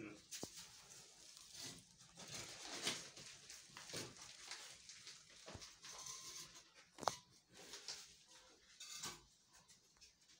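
Faint scattered rustling and scraping with a few sharp knocks, from people moving about and handling bricks in a small room.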